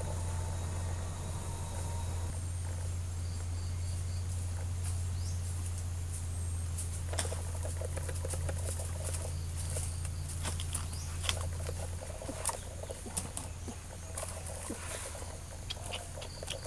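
Footsteps crackling and rustling on dry bamboo leaf litter, starting about seven seconds in. Under them runs a steady high insect drone and a low hum that drops away about twelve seconds in.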